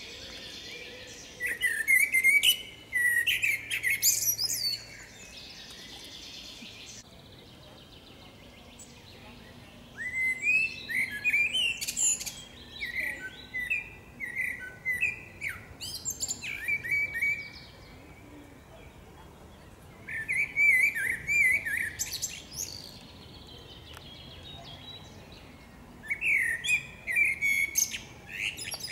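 Common blackbird (Turdus merula) singing in four bouts of quick, varied whistled phrases with squeaky high twitters, separated by pauses of a few seconds.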